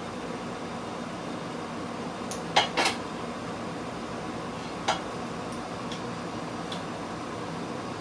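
A few sharp clicks of hard parts being handled, a loud pair about two and a half seconds in, another near five seconds and fainter ticks after, over a steady hum like a fan or air conditioner.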